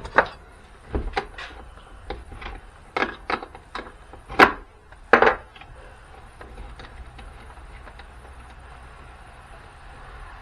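Hard parts and tools being handled while a battery booster pack is taken apart for scrap: a string of sharp knocks and clacks over the first five seconds or so, the loudest about four and a half seconds in, then only a faint steady hum.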